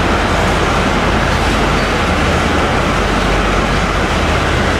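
Taiwan Railway ordinary train of 40TPK32200 passenger coaches moving along the station platform, a steady rumble of wheels on the rails with a low hum underneath.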